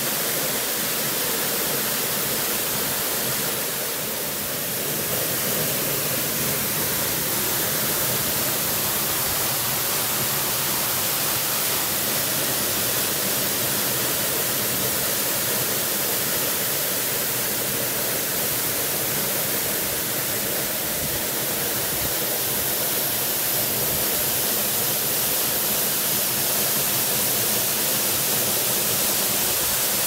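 Tall waterfall dropping down a cliff face: a steady, even rush of falling water.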